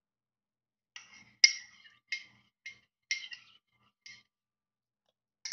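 A person gulping chocolate milk from a mug: about six short swallowing clicks over three seconds, irregularly spaced.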